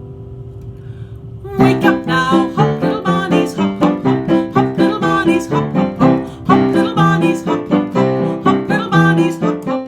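Instrumental music: a held chord dies away, then about one and a half seconds in a lively run of quick, evenly paced notes begins on a keyboard instrument.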